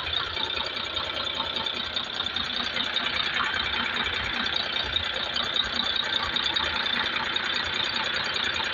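Mitsubishi Fuso common-rail diesel engine running steadily on a test run after an overhaul, with an even, rapid diesel clatter.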